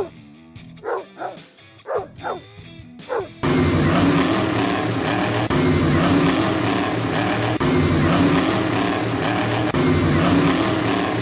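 A dog barking several times in short, separate barks: a sound effect for the Monster Mutt Rottweiler truck. From about three and a half seconds in, loud background music takes over.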